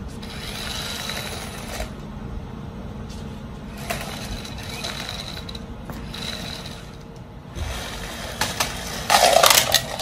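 Small electric motor of a Terrasect remote-control car whirring on and off as it drives across concrete. Near the end comes a loud clatter of hard plastic as the car crashes into a row of plastic toy animal figures and knocks them over.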